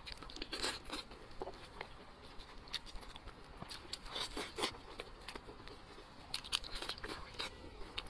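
Close-up eating sounds of a person biting, tearing and chewing a piece of braised meat: irregular wet mouth smacks and small clicks.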